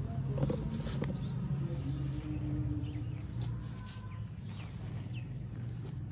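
Garden soil mixed with cow-dung compost being scooped by a gloved hand and dropped into a terracotta pot, with a few soft knocks. Under it runs a steady low drone with a few short chirps.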